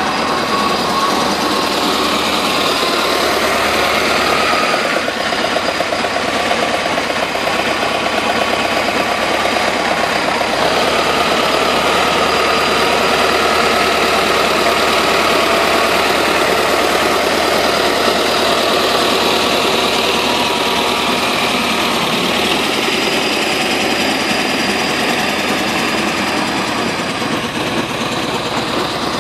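Turbocharged LTZ T-40 tractor's diesel engine running steadily under load while its rear-mounted rotary tiller churns through soil.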